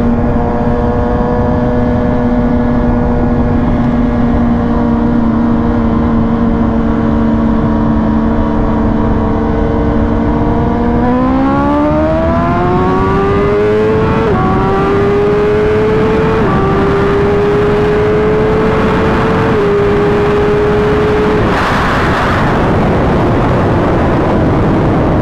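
Engine held at steady revs, then accelerating: the note rises in pitch and drops back sharply three times, once at each upshift. Near the end there is a short burst of rushing noise and the engine note falls away.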